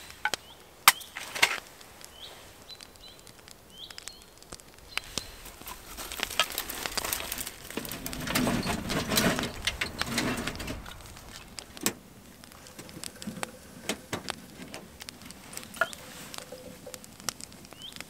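Kindling being lit in a small titanium wood stove: sharp snaps and clicks as sticks and wood shavings are handled and start to crackle, swelling for a few seconds in the middle into a louder rush as the flames catch.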